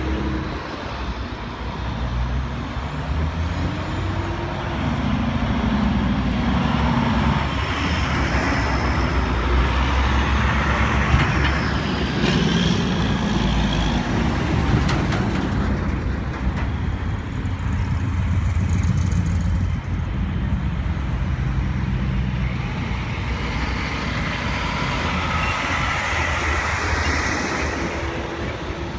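Heavy dump trucks and cars driving past one after another, a continuous diesel engine rumble with tyre and road noise.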